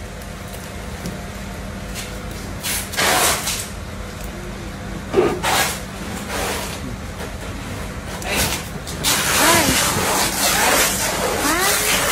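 Wet fish being handled and tossed into plastic baskets: a few short rustling, splashing bursts over a steady low hum, with people talking from about nine seconds in.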